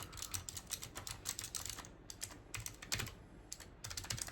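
Rapid, uneven typing on the Armaggeddon SMK-1C low-profile mechanical keyboard, its clicky switches clacking with short pauses about two seconds in and again just after three seconds.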